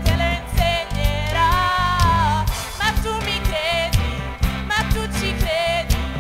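A song: a singer's voice with vibrato over a band with bass and drums.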